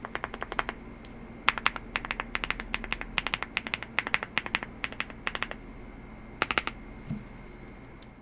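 Typing on a WOBKey Rainy75 mechanical keyboard with lubed Wuque Studio Aurora Crystal switches and GKs keycaps: bursts of quick keystrokes with short pauses between them. The typing stops a little before the end.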